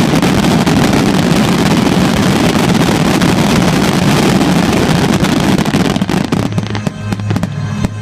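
Fireworks shells bursting in quick succession, so many at once that the bangs and crackles merge into one dense, continuous roar. About six seconds in it thins out to separate cracks and bangs.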